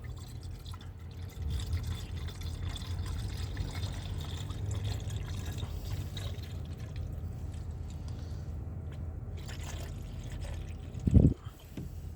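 Coolant being poured into a Ford Focus's coolant reservoir tank in a steady pouring trickle, filling the cooling system so the trapped air can be bled out of the radiator. A brief low thump about eleven seconds in.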